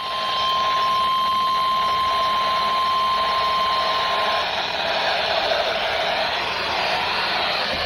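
NOAA Weather Radio 1050 Hz warning alarm tone, one steady tone that cuts off about four and a half seconds in, over steady radio static that carries on after it. The tone signals an incoming warning broadcast.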